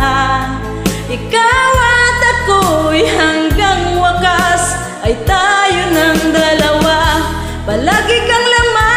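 A woman singing a Tagalog love ballad over a karaoke backing track with a steady bass line.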